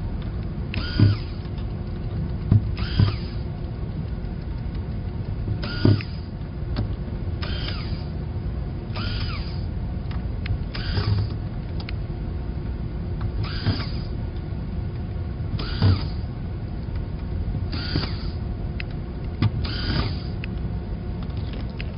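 Small screws being backed out of a circuit-board daughter card one after another with a No. 1 Phillips screwdriver: a short squeak about every two seconds, over a steady low hum.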